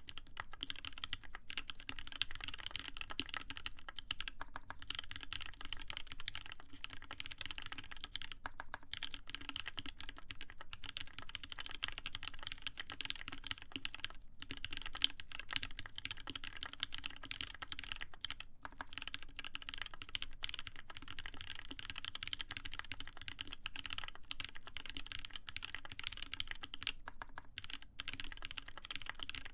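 Continuous fast typing on a TGR Alice mechanical keyboard with lubed Cherry MX Black linear switches, a full copper plate and Hammerworks CRP keycaps. The key strokes run as a dense, steady stream, broken by a few brief pauses.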